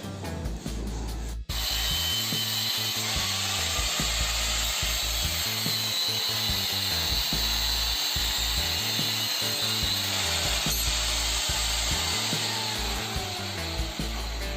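A power tool running steadily with a noisy hiss, cutting in abruptly about a second and a half in, over background music.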